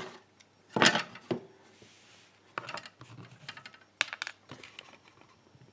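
Small metal clicks and taps of lock cylinder parts being handled: the plug and brass pin-tumbler pins of a gutted DOM euro-cylinder. The loudest is a sharp click a little under a second in, with lighter ticks scattered after it.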